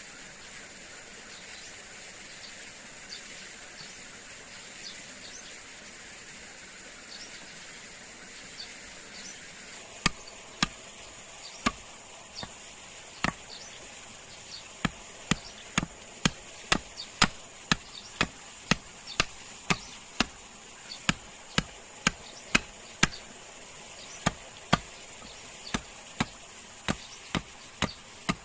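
Repeated chopping strikes on wood, sharp and irregular at about one to two a second, beginning about ten seconds in. A steady high insect drone runs underneath.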